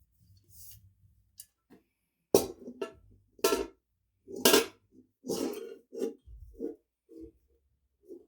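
Hammer blows on a steel armour plate held over a ball stake, knocking out a dent. About nine sharp metallic strikes, each with a short ring, come at roughly one a second starting a couple of seconds in, and the last few are lighter.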